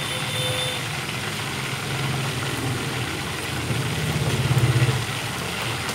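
Chicken pieces deep-frying in a pot of hot oil, bubbling and sizzling steadily over a low, even rumble. The sound swells briefly about four seconds in, as the pieces are turned with chopsticks.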